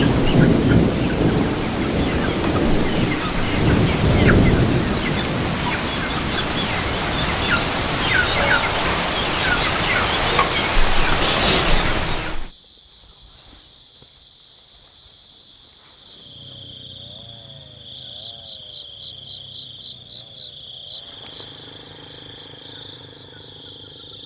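Heavy rain pouring down with low rolls of thunder. About halfway through it cuts off abruptly to a much quieter scene of insects trilling steadily, with a faint wavering call in the middle.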